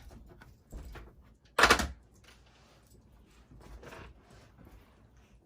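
A hammer knocking once against a wooden door, a single loud knock about a second and a half in, among softer knocks and handling sounds.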